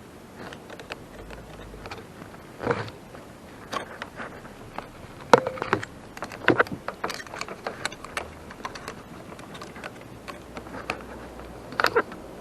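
Handling clicks and taps of a flat screwdriver and headlight bulb working against a plastic bulb socket as the bulb is pried out, with a sharp click about halfway through and another near the end.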